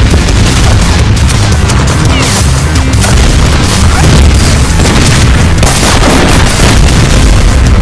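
Repeated film gunshots and booming explosion effects over loud action music.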